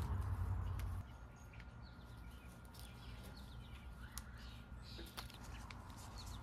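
Small birds chirping in short, quick calls around the garden, with a low rumble in the first second and a few sharp clicks scattered through.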